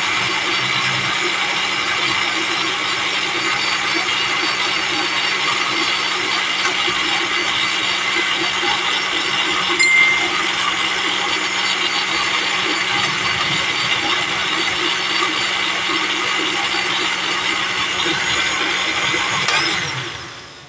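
Electric blender running steadily as it blends a lemon juice mix, then switched off and winding down about a second before the end.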